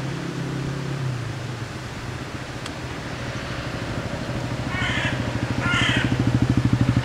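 A vehicle engine runs with a steady low hum, then a pulsing beat grows steadily louder from about four seconds in. Two short high chirps come near the end.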